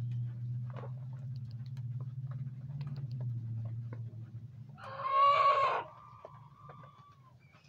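A hen gives one loud call about five seconds in, trailing off into a thinner, falling note. Before it, a low steady hum and faint scattered ticks.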